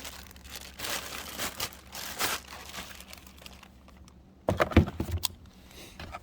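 Packaging being unwrapped by hand: crinkling and tearing of wrapping material in short rustles. A few louder knocks and thuds come about four and a half seconds in.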